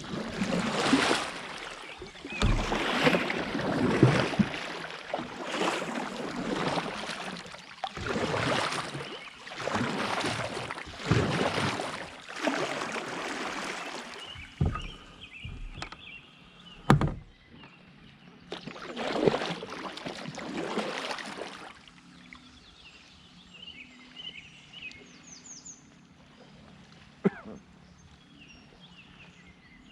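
Kayak paddle strokes splashing and swishing through creek water, a stroke every second or two, stopping about two-thirds of the way through. A single sharp knock comes about halfway in.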